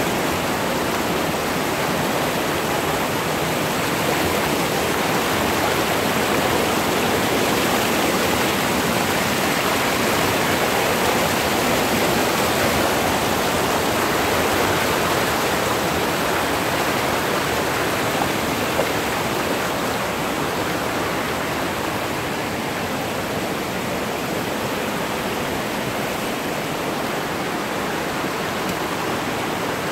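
Steady rushing of water cascading over the boulders of a rocky mountain stream below a waterfall.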